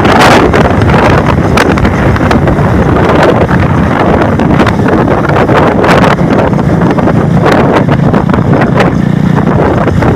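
Heavy wind buffeting the microphone while riding on a moving vehicle, with a steady engine running underneath.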